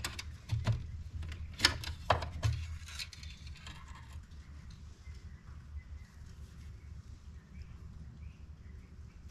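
Engine-oil dipstick being drawn from its metal tube and wiped with a cloth rag: a few sharp clicks and scrapes in the first three seconds, then faint rustling over a low steady hum.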